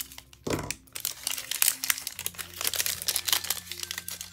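A small plastic toy packet being cut with scissors and pulled open by hand: a dense run of quick crinkling crackles, with a bump about half a second in.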